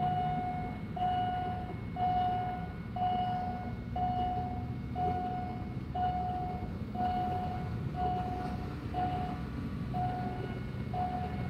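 Railway level-crossing warning signal sounding while the barriers are down for an approaching train: a steady electronic beep repeating about once a second. A low steady rumble runs underneath.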